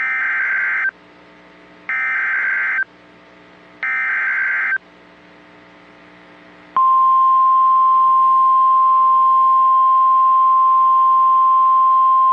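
NOAA Weather Radio Emergency Alert System signal: three one-second SAME header data bursts, about two seconds apart. About seven seconds in, the steady single-pitch 1050 Hz warning alarm tone starts and holds loud. It announces a severe thunderstorm warning.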